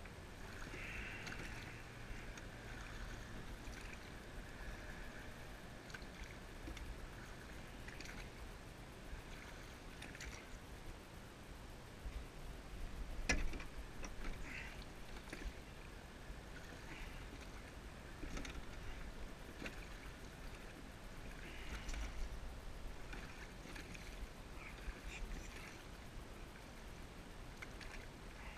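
Faint water lapping and trickling along the hull of a rowing shell gliding slowly, with scattered small clicks and a sharp knock about halfway through.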